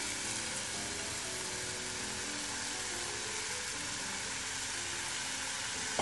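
Halved morel mushrooms sizzling steadily in butter in a frying pan.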